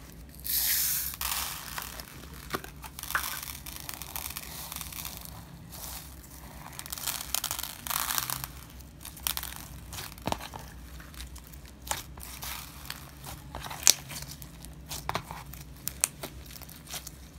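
Homemade white glue slime being kneaded by hand with small plastic beads worked through it to make crunchy slime: irregular sticky, crunchy handling noise with scattered sharp clicks. A hissing pour of beads from a pot comes in about half a second in.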